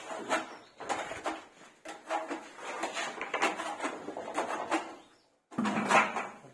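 Irregular scraping and knocking from hand-work at a wall being puttied: a wooden straight-edge and tools against the wall, and wooden ladder and plank frames being shifted. The sound cuts out briefly near the end, then resumes with a louder knock.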